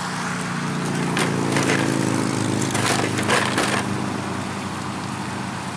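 A steady low mechanical hum, with scattered clicks and crackles from the plastic hull of an RC speedboat being handled with its cover off, most of them in the middle of the stretch.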